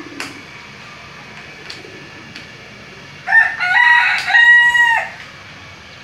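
Rooster crowing once, about three seconds in: a loud crow of about two seconds in stepped notes, ending on a long held note.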